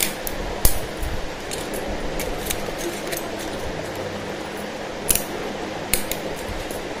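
Disposable plastic spoons being handled and worked by hand, giving a few sharp plastic clicks over a steady background hiss.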